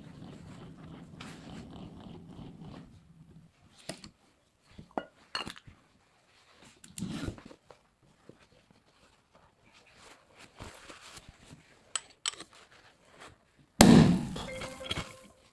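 Popcorn machine popping a pot of millet: a low steady hum for the first few seconds, then scattered metallic clinks and knocks, and near the end one loud bang that dies away over a second or so.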